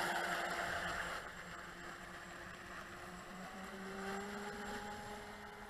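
Volantex Vector 70 RC racing boat running across the water, its 1800 kV brushless motor giving a steady hum over the hiss of spray. The spray hiss dies down about a second in, and the motor's pitch rises a little past the middle.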